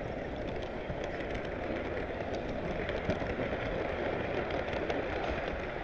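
Model freight train running on its track, heard from on board: a steady rolling rumble of the cars' wheels on the rails with faint scattered clicks.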